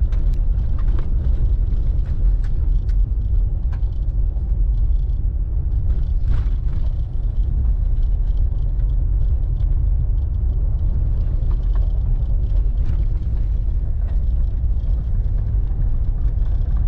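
Truck driving over a rough dirt trail: a steady low rumble of tyres and running gear, with scattered knocks and rattles as it rolls over bumps and stones.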